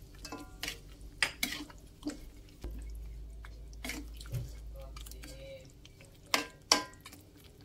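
Metal spatula stirring thick chilli sauce and chicken feet in an aluminium wok, scraping and clinking against the pan in an irregular run of knocks, with two sharper knocks near the end.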